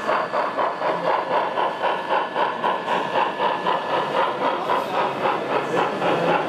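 Gauge 1 model steam train, a locomotive hauling passenger coaches, running past with a steady rhythmic pulse of about four to five beats a second.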